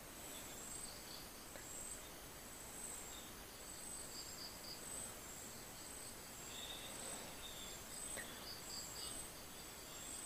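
Faint high-pitched insect chirping, likely crickets, pulsing on and off over quiet background noise, with one or two faint small clicks.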